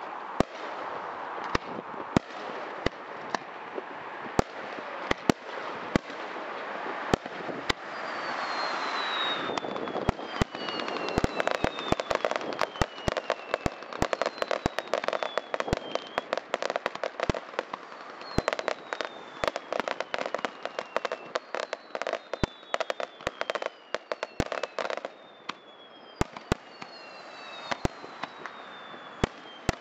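Fireworks display: a rapid string of sharp bangs from bursting shells over continuous crackling, densest in the middle and thinning near the end. From about eight seconds in, several high whistles slide down in pitch.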